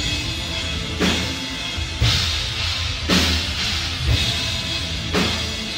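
Heavy rock music with a full drum kit, bass and guitars, with a big accented hit about once a second.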